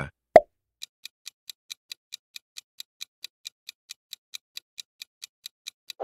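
Countdown-timer sound effect: a quick, even clock ticking, about four and a half ticks a second. It follows a single short, sharp pop about a third of a second in, the loudest sound here.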